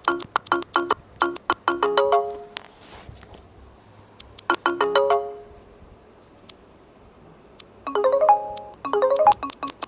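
Asus ZenFone 2 Laser notification tones played one after another: quick runs of short, bright chime notes, with a longer pause about halfway through before the next tones start.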